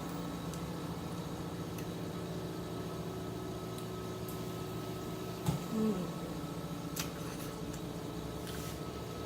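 Steady mechanical hum of room background noise, with faint wet clicks of chewing and lip smacking on sticky chicken wings. There is a soft knock about five and a half seconds in, and another click a little later.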